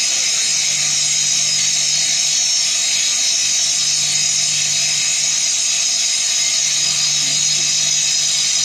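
Wood lathe running and cutting wood: a steady machine hum under an even high hiss, unchanging throughout.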